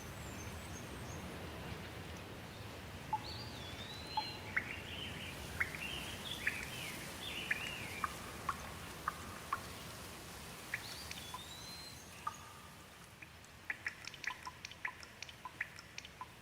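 Steady rain hiss with birds calling in short swooping chirps, one run in the first half and another shorter one later. Toward the end the rain thins and a quick run of sharp clicks comes, several a second.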